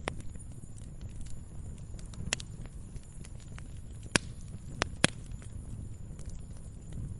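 Log fire burning, with a low steady rumble and scattered sharp crackles and pops, the loudest a little after four seconds in and just after five seconds in.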